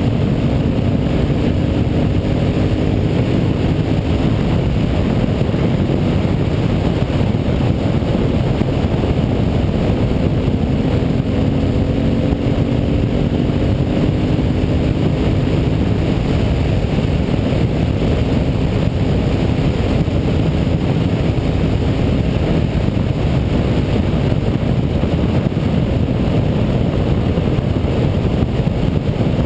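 Carbureted Honda Varadero 1000's V-twin engine running at a steady cruise, its pitch drifting gently up and down, under heavy wind rush on the on-board microphone.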